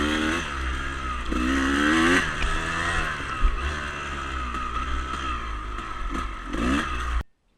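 Dirt bike engine running under way, its pitch rising and falling as the throttle is opened and rolled off, over a steady low rumble. The sound cuts off suddenly near the end.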